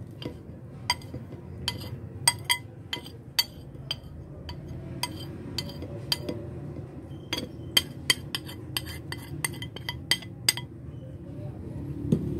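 Kitchenware clinking against a plastic blender jar as ground cashew powder is tipped and tapped in: a run of about twenty irregular, sharp clinks that stops near the end.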